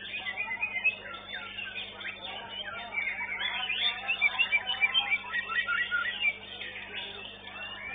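White-rumped shama (murai batu) singing in a contest: a fast, varied run of whistles and chirps, loudest from about three to six seconds in.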